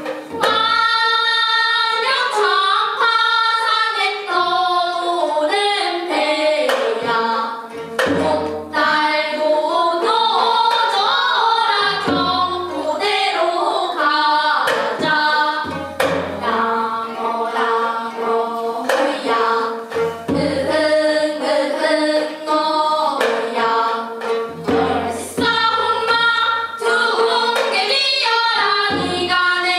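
Several young voices singing a Korean sinminyo (new-style folk song) together while accompanying themselves on plucked gayageum zithers, in the byeongchang style of singing to one's own gayageum.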